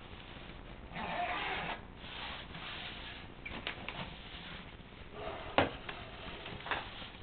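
Fabric delivery bag being handled: rustling, with a few clicks and one sharp knock about five and a half seconds in, the loudest sound.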